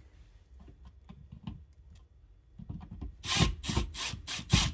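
A piece of wire being worked around a screwdriver by hand: a few faint clicks, then from about three seconds in a quick run of short scraping, rubbing strokes, about three a second.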